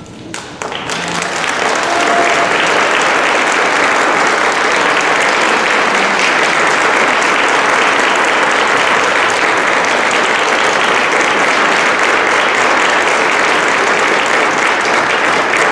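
Audience applause that starts just under a second in, swells over the next second or so, then holds steady.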